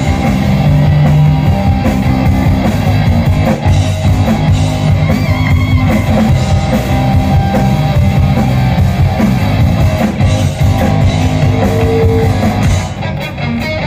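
Live rock band playing through PA speakers: electric guitar over bass and a drum kit.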